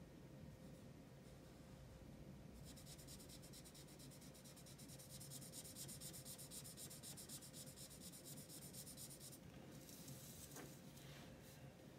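Faint scratching of a Spectrum Noir marker nib coloured back and forth over paper in rapid, even strokes. Near the end the paper sheet is shifted across the table with a short rustle.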